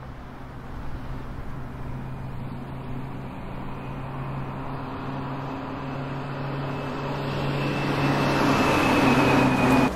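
Street traffic: a motor vehicle's engine running with a steady hum that grows louder toward the end, then cuts off suddenly.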